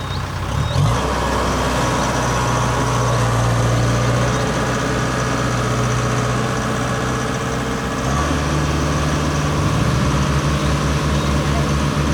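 Rice combine harvester's diesel engine running under load as the machine climbs up onto a ferry. The engine note rises about a second in and changes again twice in the second half.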